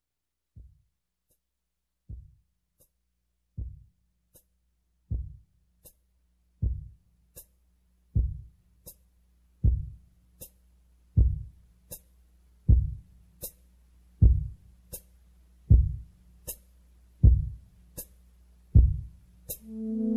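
Slow heartbeat sound effect: a heavy low thump followed by a softer one, repeating about every one and a half seconds and growing steadily louder, over a faint low hum.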